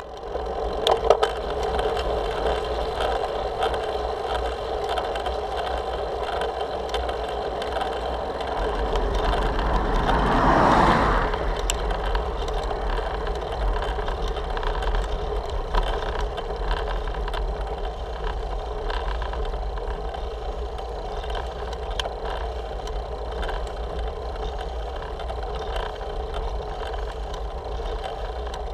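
Riding noise of a road bicycle climbing, picked up by a handlebar-mounted camera: steady rumble of wind and road with a constant hum. A few sharp knocks about a second in, and a swelling rush of noise that peaks about ten seconds in and fades.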